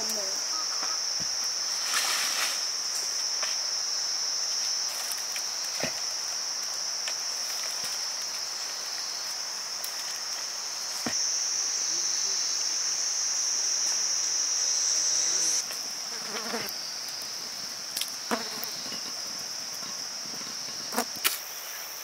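A steady, high, continuous chirring of insects, stepping up in loudness for a few seconds in the middle, with a few scattered light knocks.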